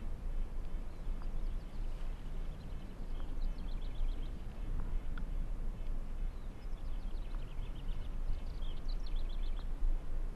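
Steady low rumble of wind on the microphone, with a small songbird singing two rapid, high trills, about three seconds in and again from about seven seconds on.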